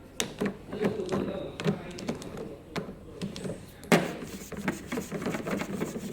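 Irregular plastic clicks and knocks of a filter wrench working a water purifier's filter cover loose, with one sharper knock about four seconds in.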